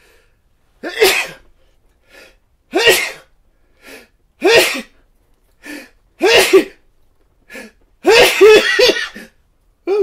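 A man sneezing repeatedly: five loud sneezes about every two seconds, with short quick breaths drawn in between, the last one longer.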